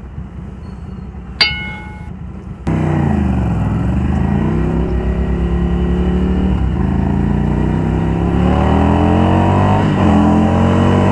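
Ducati Scrambler Icon's air-cooled L-twin idling, with one short sharp sound about a second and a half in. Near three seconds in it pulls away hard under full throttle. The engine note climbs, drops at a gear change about four seconds later, then climbs again.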